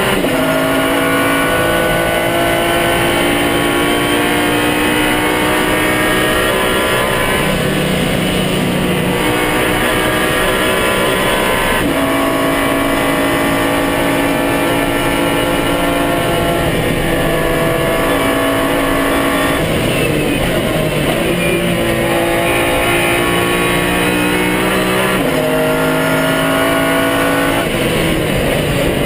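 Pagani Zonda R's 6.0-litre Mercedes-AMG V12 running hard, its pitch climbing through each gear and stepping sharply at the gear changes, several times over.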